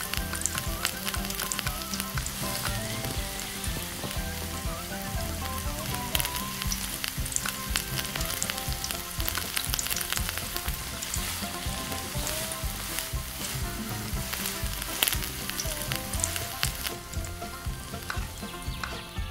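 Food frying in hot oil in a miniature pan: steady sizzling with dense fine crackling pops, thinning out in the highs near the end.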